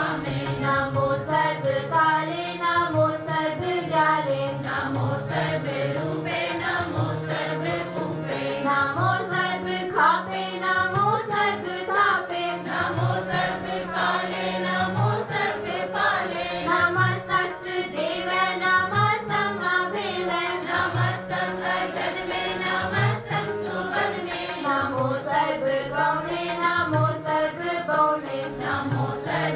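A group of girls singing Sikh kirtan together, accompanied by harmoniums holding a steady drone and tabla drums keeping a regular beat.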